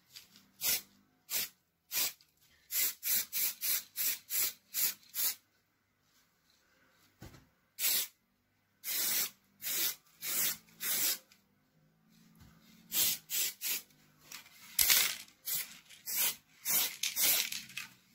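Spray paint hissing out in many short bursts, quick runs of passes broken by brief pauses, with a few longer sprays in the middle and near the end, as a coat of paint goes on.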